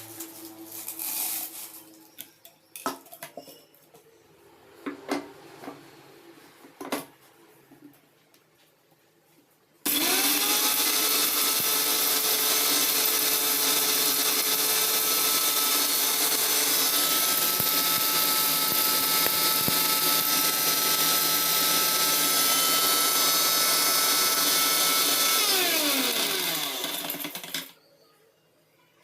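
Scattered clicks and knocks. About ten seconds in, a Sansui Pro mixer grinder's motor starts with a rising whine, runs steadily at full speed for about fifteen seconds, then winds down with a falling whine.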